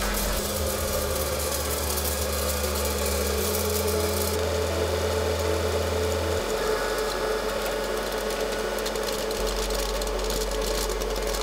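Electric hot-air popcorn popper running, its fan motor giving a steady hum.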